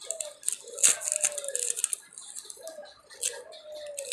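Baby bird being hand-fed: quick clicking and crackling feeding noises, with four low, falling calls, some of them drawn out for about a second.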